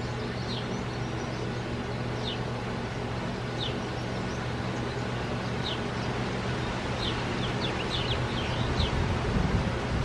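Small songbirds at a seed feeder give short, sharp, falling chirps. They come singly every second or two, then in a quick flurry near the end, over a steady low hum. A low rumble of wind on the microphone rises toward the end.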